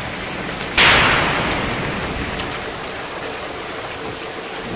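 Heavy rain pouring down steadily. Just under a second in, a sudden loud thunderclap breaks over it and fades away over about two seconds.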